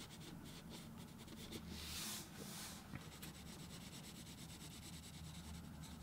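Faint scratchy rubbing of a pencil shading back and forth on drawing paper, in quick repeated strokes that grow a little louder about two seconds in.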